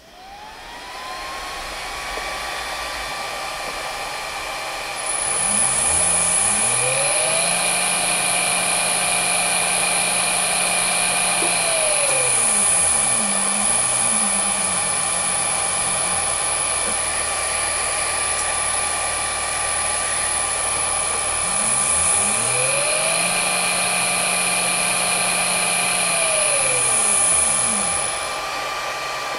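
Cooling fan of an XSY-AT1 variable frequency drive spinning up and running with a steady whir. About five seconds in, the drive starts a 1 HP three-phase induction motor: a high-pitched whine sets in and the motor's hum rises in pitch as it is sped up, falls back as it is slowed, rises and falls once more, then stops near the end.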